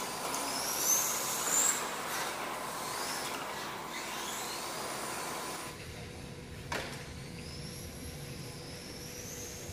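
Electric motor and drivetrain of a radio-controlled touring car running on a track, with a high whine that climbs in pitch as the car accelerates and falls away again, several times. A single sharp click about seven seconds in.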